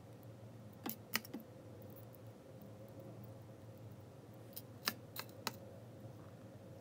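Light clicks of jewelry tools and wire being handled over a faint steady hum: three clicks about a second in, then four more evenly spaced around five seconds in.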